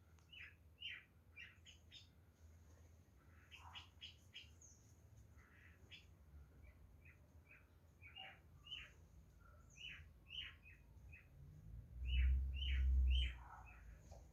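Birds chirping: many short, quick calls, one after another. About twelve seconds in, a low rumble lasting about a second and a half is the loudest sound.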